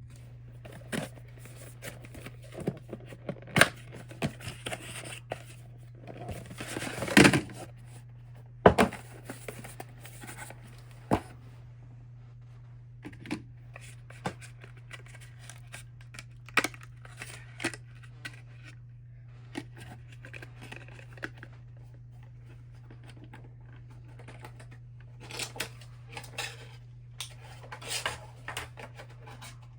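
Scattered clicks, knocks and rustling of objects being handled, loudest in a cluster about seven to nine seconds in, over a steady low hum.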